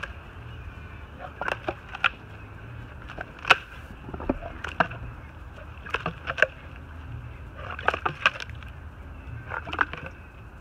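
Saltwater crocodile chomping down on a thick slab of pork ribs: sharp crunches and cracks as the jaws clamp and the bones break, coming singly and in quick clusters of two or three, the loudest about three and a half seconds in.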